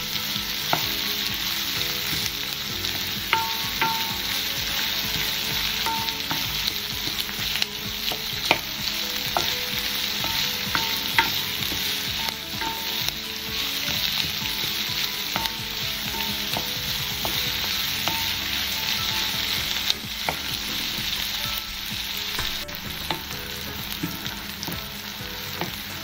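Sliced onions sizzling in hot oil in a nonstick wok, a steady frying hiss, while a wooden spoon stirs them and now and then knocks against the pan.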